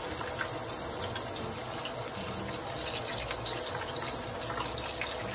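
Hot oil sizzling in a skillet where an egg-battered fish fillet is frying: a steady hiss with small scattered pops.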